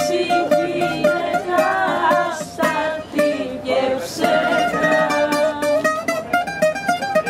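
Greek bouzouki played with a pick: an instrumental passage of fast picked melodic runs, with quick repeated notes near the end.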